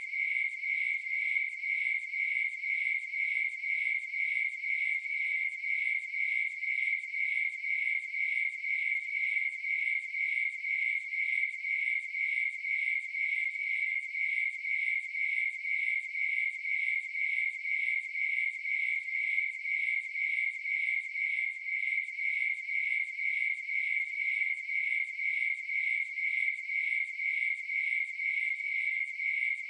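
Crickets chirping in a steady, evenly spaced rhythm that does not change.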